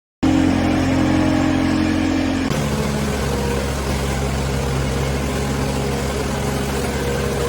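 Skid steer loader's engine running steadily. It cuts in suddenly and changes pitch and character about two and a half seconds in.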